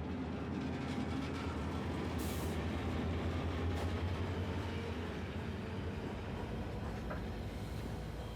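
Mauritanian iron ore train running: a steady low rumble of the rolling train, with a brief hiss about two seconds in.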